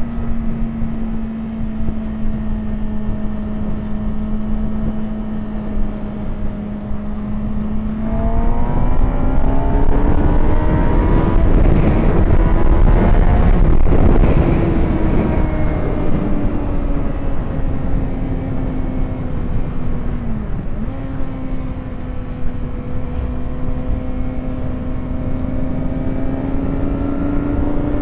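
Sportbike engines at road speed under heavy wind rush on the microphone. About a third of the way in, the engine pitch climbs as the motorcycles accelerate, with a second bike drawing alongside. The sound is loudest around the middle, then the pitch settles back. A brief dip in engine pitch comes about two-thirds of the way through, and the revs rise gently again near the end.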